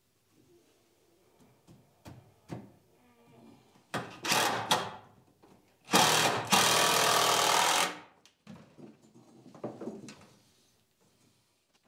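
Handheld power drill driving screws into the wooden frame of a workbench. It gives two short bursts about four seconds in, then one steady run of about two seconds starting about six seconds in, with light knocks of handling the wood and tool between them.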